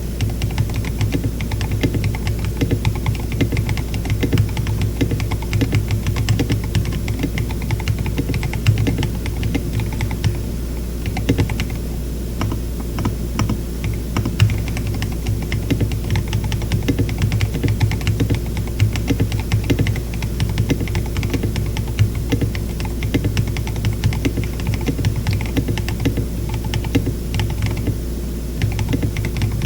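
Typing on a KBD67 Lite mechanical keyboard with tactile Glorious Panda switches (Panda stems in Zealios v2 housings) and KAT Alpha keycaps: a steady, uneven stream of keystroke clacks with a couple of brief lulls, over a low steady hum.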